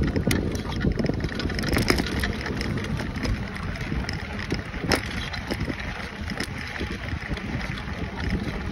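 Wind buffeting the microphone and a knobby bike tyre rolling over a sandy dirt track, with scattered clicks and crunches from the gravel and the bike, one sharper click about five seconds in.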